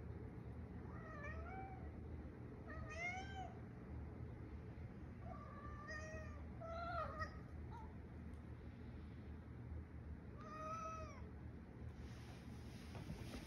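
Manx cat meowing: about five separate meows a second or a few seconds apart, each rising and then falling in pitch.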